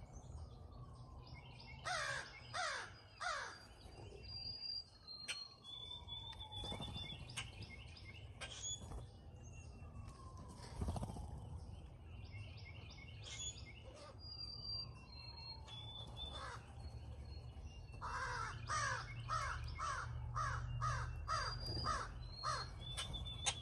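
Crows cawing: a run of three harsh caws a couple of seconds in, scattered single caws, and a long rapid series of caws near the end. Other small birds sing throughout, including a repeated falling whistle and high thin notes.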